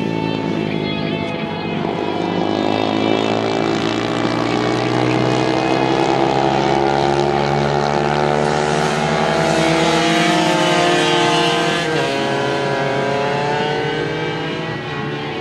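Racing motorcycle engines running at high revs as bikes lap the track, with several engines overlapping. The pitch rises and falls as they accelerate and back off.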